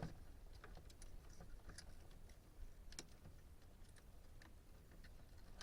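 Faint, scattered small clicks and taps of plastic door-trim parts being handled and fitted by hand, a dozen or so light ticks at uneven intervals.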